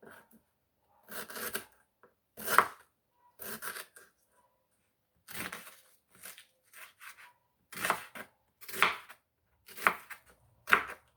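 Knife cutting food on a cutting board: a series of separate cuts, roughly one a second and irregularly spaced.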